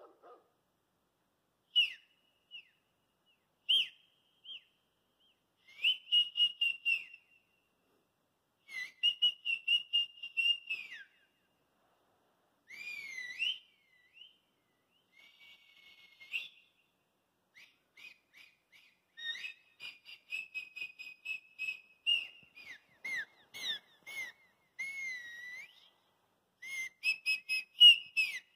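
A person whistling in separate bursts with pauses between: short single chirps, warbling trills, and swooping notes that rise and fall. The runs of trills get longer and busier in the second half.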